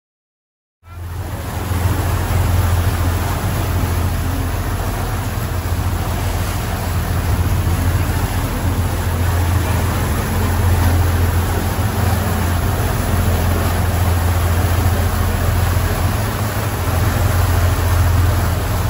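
A motor boat's engine running steadily under way, a constant low drone with wind and water rushing past; it cuts in suddenly about a second in.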